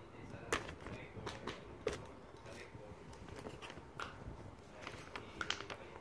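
Plastic fidget toys being handled on a bed: scattered light taps and clicks, a few seconds apart, with faint children's voices.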